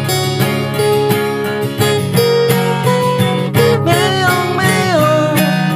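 Instrumental break in a song: acoustic guitar strumming a steady rhythm, with a melody line that bends in pitch from about four seconds in.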